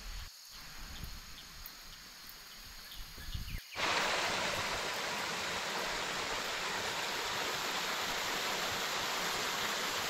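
Faint outdoor background, then from about four seconds in the steady rush of a small mountain stream running over mossy rocks, starting suddenly.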